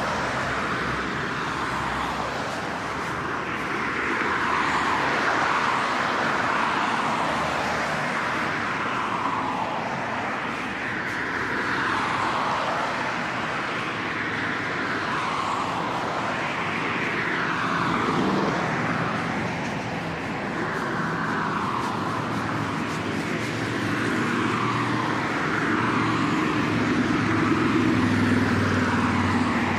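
Traffic on a multi-lane city road: cars passing one after another, their tyre noise swelling and fading every couple of seconds. A deeper engine hum comes in near the end.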